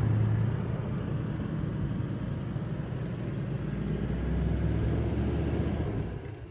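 Toyota LandCruiser 70-series ute driving slowly across beach sand: a steady low engine hum under a rushing noise, dropping away just before the end.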